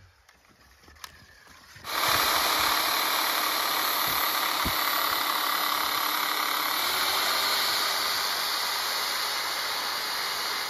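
Ryobi corded reciprocating saw running steadily as it cuts at a wooden concrete form board. It starts about 2 seconds in, and its pitch rises slightly about halfway through.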